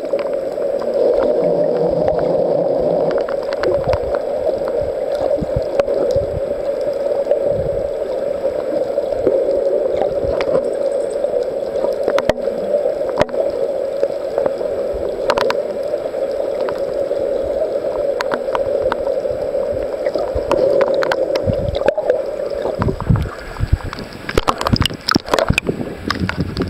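Muffled underwater sound through a waterproof compact camera's microphone: a steady dull rush with scattered clicks and knocks. About 23 seconds in the rush gives way to uneven splashing as the camera breaks the water's surface.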